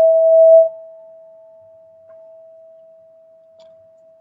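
Golden ZenTube ringing one sustained tone. It is loud for about half a second, then drops off and fades slowly away.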